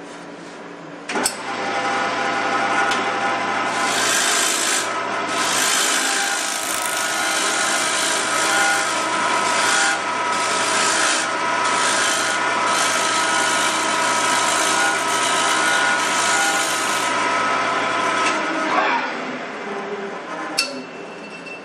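A turning tool cutting a wood bowl blank spinning on a lathe: a loud hiss of wood being shaved, in uneven passes, over the lathe motor's steady hum. The cutting starts suddenly about a second in and stops near the end, followed by a single sharp click.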